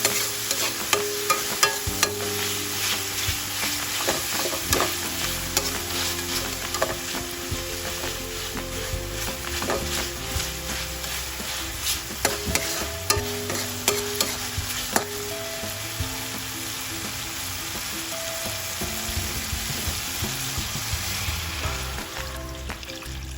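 Food frying and sizzling in hot oil in a pan while it is stirred, with frequent sharp clicks of a utensil against the pan. Soft background music plays underneath.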